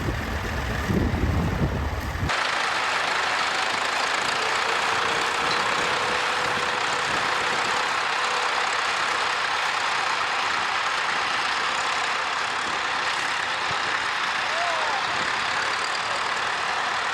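Tractor engine running steadily. About two seconds in, the sound switches suddenly from a deep rumble to an even, hiss-like noise that carries on unchanged.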